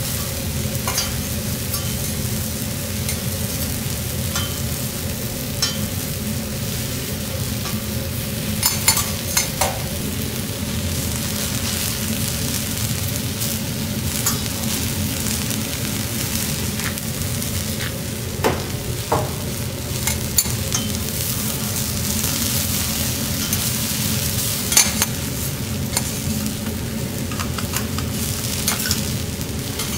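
Slices of onion, eggplant and zucchini sizzling on a hot steel teppanyaki griddle, a steady hiss, with a few sharp clicks and scrapes of metal spatulas on the steel.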